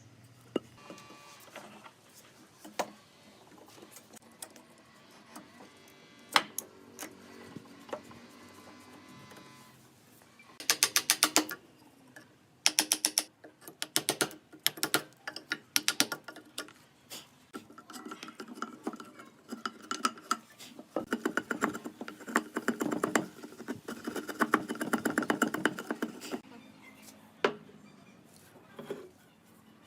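Workshop tool sounds: repeated bursts of rapid mechanical clicking and rattling, the loudest burst about eleven seconds in, with a run of mixed clatter in the second half.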